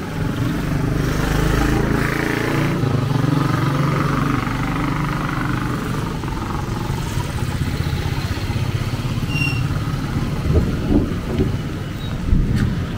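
A road vehicle's engine, likely a motorcycle, running close by as it passes, loudest in the first few seconds, over a steady hiss of heavy rain.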